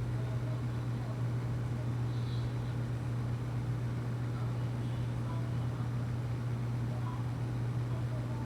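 A steady low hum with an even hiss over it, unchanging throughout, with a few faint short high sounds on top.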